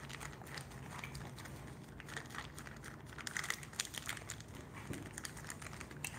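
Crinkling of a plastic snack pouch, with scattered small clicks and rustles, as mixed nuts and dried berries are shaken out of it.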